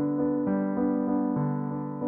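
Background music: a solo piano tune, single notes struck one after another and left to ring.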